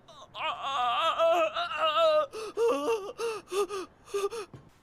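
A man's wordless vocal outburst: a drawn-out wail with a shaking, wavering pitch for about two seconds, then a run of about eight short, choppy cries, like mock sobbing.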